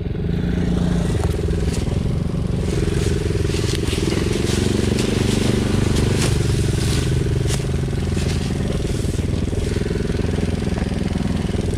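Small 110cc single-cylinder engine of a Chinese youth ATV running steadily along a rough trail, with scattered clicks and rattles.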